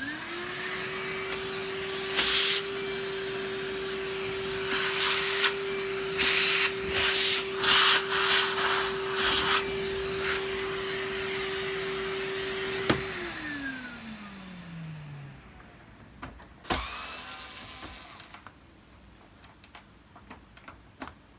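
A vacuum cleaner is switched on and runs at a steady high pitch, with repeated louder bursts of rushing air as it sucks up dust. About 13 seconds in it is switched off and winds down with a falling pitch. A short rush of air follows a few seconds later.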